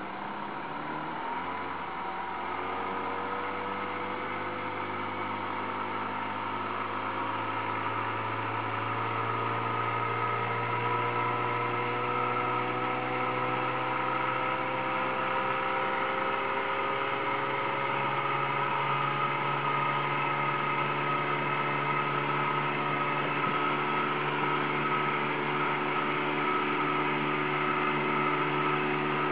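28-horsepower outboard motor running under way. Its revs climb slowly through the first fifteen seconds or so, then hold steady.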